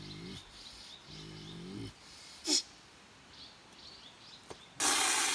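A man's low, drawn-out groans, twice, over faint bird chirps. A short sharp hiss comes about two and a half seconds in, and a louder half-second rushing noise near the end.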